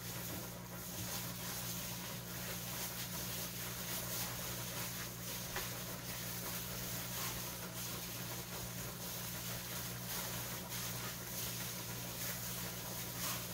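Gloved hands squishing and kneading raw meatloaf mixture in a bowl, soft irregular squelches, over a steady low hum.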